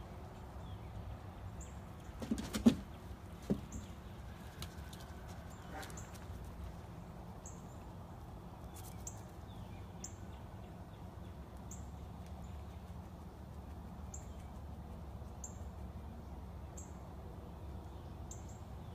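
Room sounds with a steady low hum: a few knocks and a thud about two to three seconds in, then a short faint high chirp repeating about every second and a half.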